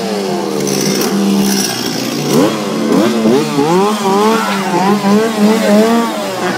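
Chainsaw engine running loud, revved up and down again and again so its pitch keeps rising and falling over a steady low drone, with a sharp rev just as it starts and a fast wavering run of revs in the second half.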